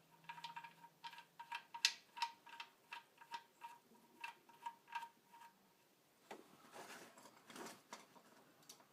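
Ratchet with a 1/2-inch socket clicking as it runs the oil drain plug back into the oil pan, faint metallic clicks about two or three a second, then a few soft scrapes near the end.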